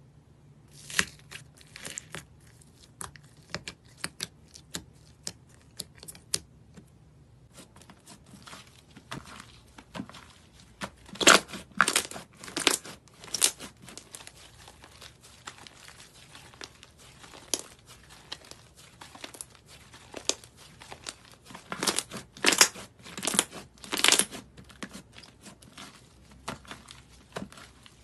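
Dark grey slime being stretched, squeezed and poked by hand, giving sticky crackles, pops and tearing sounds as irregular clicks, with louder runs about midway and again near the end.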